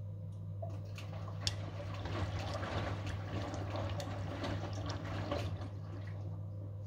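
Front-loading washing machine tumbling shirts in its final rinse: water sloshing and splashing in the turning drum for about five and a half seconds, with a few sharp clicks, over a steady low hum. The sloshing starts about half a second in and dies away near the end.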